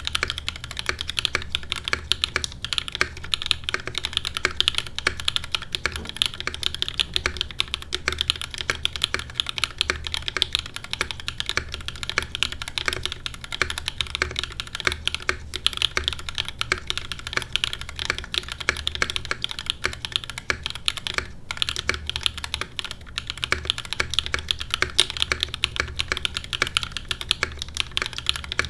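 Steady fast typing on a custom mechanical keyboard: an Iron160 with gasket mount, aluminum plate, lubed SOTC switches and GMK keycaps, keystrokes clicking in a dense, unbroken stream.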